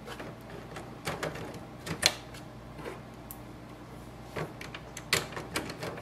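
Epson XP-4100 ink cartridges pushed down into the plastic cartridge holder, giving a series of sharp plastic clicks as they latch into place, the loudest about two seconds in.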